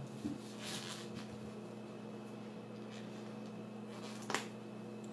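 Faint clicks and crackles of a cooked lobster's spiky shell being picked apart by hand through a rag, with one sharper click about four seconds in, over a steady low hum.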